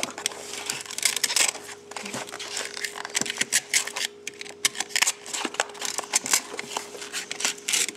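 A 6x9 car speaker being cut and torn apart by hand with a razor blade: irregular crackling, tearing and scraping as the cone is pried open, with sharp clicks scattered throughout, over a faint steady hum.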